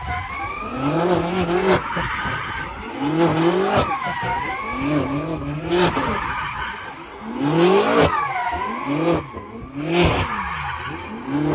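Drifting cars: engines revved hard over and over, climbing, holding and dropping about every two seconds, with tyres squealing on the tarmac.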